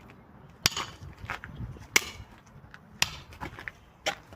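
Pickaxe blows striking a padlock: four sharp impacts about a second apart, each followed by fainter clatter.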